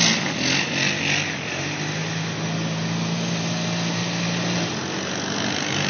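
Side-by-side utility vehicle's engine running at a steady pitch as it spins donuts on a muddy dirt lot, with a constant rushing noise over it.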